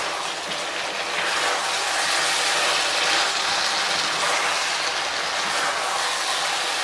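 Pumpkin cubes frying in a thick sauce in a stone-coated frying pan: a steady sizzle, with a slotted plastic spatula scraping and stirring through it while the added starch water cooks and thickens the sauce.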